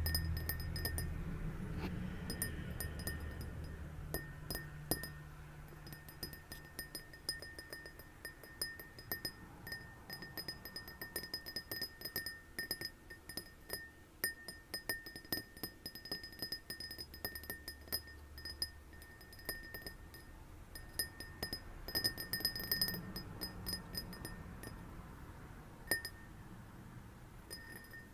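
Glass being tapped in quick, irregular runs of light taps, each setting the glass ringing with a clear note. The taps come thickest a little over three-quarters of the way through.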